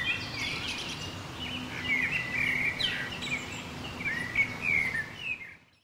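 Several birds chirping and singing over a steady outdoor background hiss, fading out near the end.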